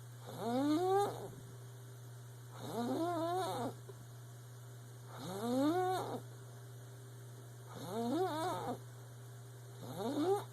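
Squeaky snoring: five snores about two and a half seconds apart, each a high squeak whose pitch rises through the breath.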